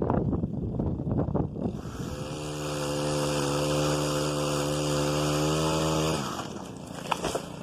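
Small engine of a powered limb-cutting tool running, rough and uneven at first, then holding a steady speed before it shuts off about six seconds in. A few faint clicks follow.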